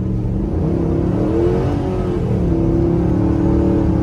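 Ram 1500's 5.7-litre Hemi V8, heard from inside the cab, revving up about a second in and dropping back near two seconds, then held at a steady higher rev as the truck slides round in the snow.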